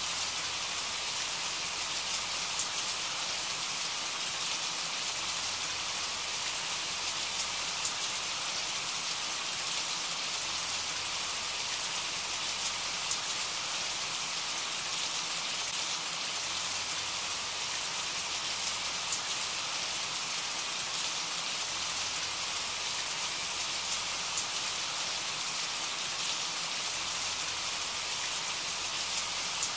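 Steady rain falling, an even hiss with a few sharper drop taps scattered through it.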